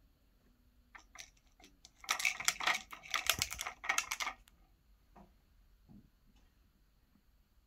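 Plastic cat treat puzzle rattling and clicking as a cat paws at it: a few clicks, then a dense burst of rattling clicks lasting about two and a half seconds, then a few scattered clicks.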